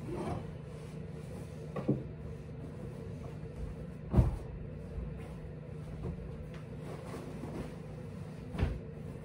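A few soft thumps and knocks from a bed being made up on a wooden bunk, over a steady low hum; the loudest thump comes about four seconds in.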